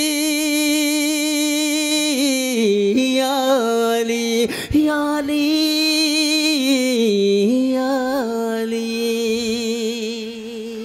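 A man singing a devotional song unaccompanied through a microphone and PA, one sustained voice. He holds a long high note for about two seconds, then steps down through wavering ornamented turns to lower held notes, with a brief break about four and a half seconds in, and grows a little softer near the end.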